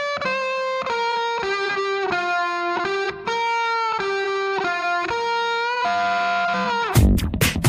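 Background instrumental music: a melodic line of held electric guitar notes without drums, with a beat coming back in near the end.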